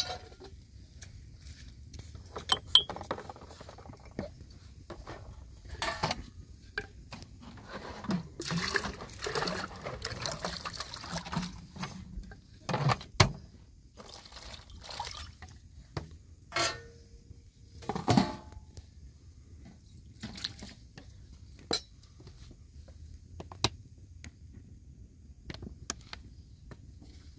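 Water being poured and splashed in short spells, with scattered clinks and knocks.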